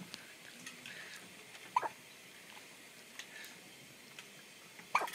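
A baby hiccuping twice, about three seconds apart: short, high-pitched hiccups.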